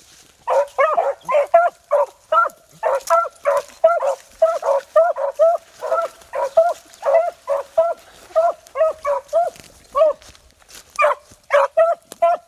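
Beagles baying on a rabbit's scent line: a quick, steady run of short, pitched barks, about two or three a second, with a brief pause near the end.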